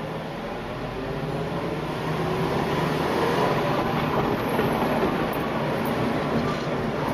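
Vehicles pulling away, heard from inside a car following a streetcar. Road and motor noise grows louder over the first three seconds, with a faint whine that climbs in pitch as they speed up.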